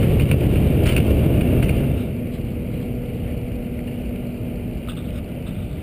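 Wind buffeting a GoPro's microphone through cotton batting stuffed into its case, a dull low rumble that drops in level about two seconds in.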